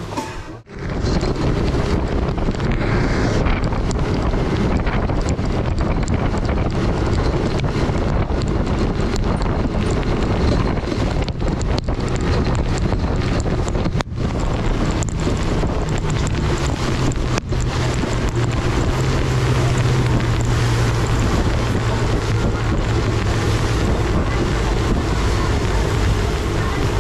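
Fishing boat running at speed through choppy sea: a steady engine drone under heavy wind buffeting the microphone and the rush of spray and wake along the hull.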